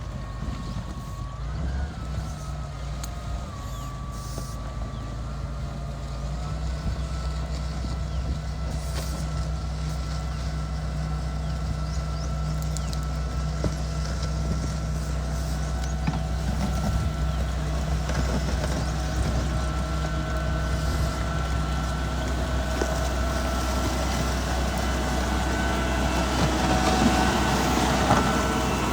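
Mitsubishi MG430 motor grader's diesel engine running steadily under work, with a thin high whine over the engine note that shifts in pitch a couple of times in the first few seconds. The sound slowly grows louder.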